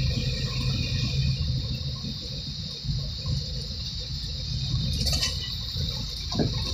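Steady road and engine noise of a moving car heard from inside the cabin: a low rumble under a hiss of tyres on the road. A brief sharper noise cuts across it about five seconds in.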